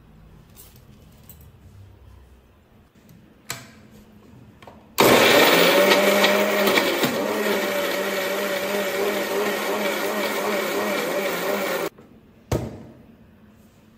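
Electric mixer grinder (mixie) running for about seven seconds, grinding shallots, onion, tomato and dried red chillies coarsely without water. It is loudest as it starts, then settles slightly. There is a sharp click a second or so before it starts and another just after it stops.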